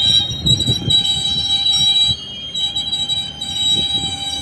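Economy-class passenger coaches rolling slowly past: an uneven low rumble with knocks from the wheels under a steady high-pitched squeal of wheels and brakes as the train slows to stop at the station.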